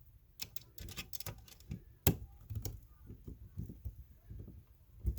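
Irregular small clicks and scrapes as the bottom mounting screw of an electrical outlet is started into the wall box, with one sharper click about two seconds in.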